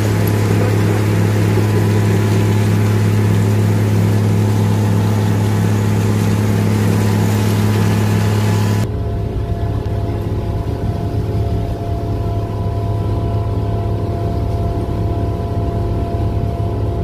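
Railway ballast regulating machine's engine running steadily, a strong low hum with a hiss above it. About nine seconds in the sound changes abruptly to a rougher, lower rumble with a faint steady whine, heard inside the machine's cab.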